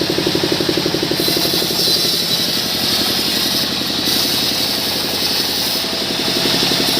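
Sawmill engine running steadily with an even, rapid pulse while small mahogany logs are sawn. A steady high hiss joins it about a second in.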